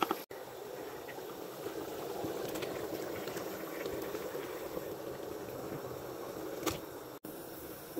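Thick tomato and pepper sauce bubbling in a large pot, a steady low blubbing with small pops. A single sharp knock comes near the end.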